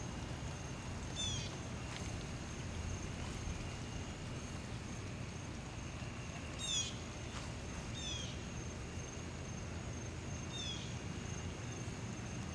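Outdoor ambience: a bird gives a short, quick descending call four times, over a steady high-pitched insect drone and a low rumble on the microphone.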